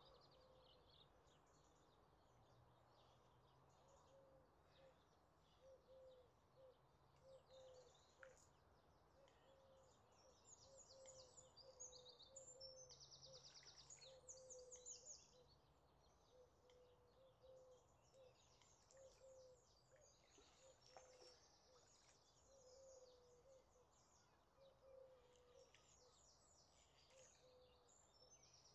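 Faint birdsong from several birds, with chirps throughout and a fast, dense trill about ten to fifteen seconds in. Underneath, a soft low note repeats about once a second over a faint steady hum.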